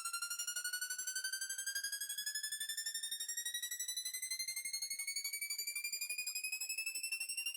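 Synthesized riser sound effect: a bright buzzy tone pulsing rapidly, about eight times a second, climbing slowly and steadily in pitch throughout, a build-up layer of a remade pachinko jackpot sound.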